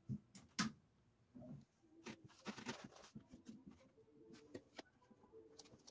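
Faint clicks and handling noises as a 1949 Motorola VT73 television is switched on, with a faint steady hum coming in about four seconds in.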